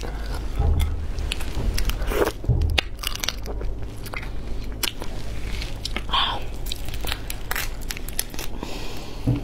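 Whole cooked shrimp being pulled apart and peeled by gloved hands: an irregular run of sharp crackles and snaps of shell.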